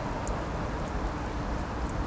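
Steady low rumble and hiss of outdoor background noise, with a couple of faint high ticks.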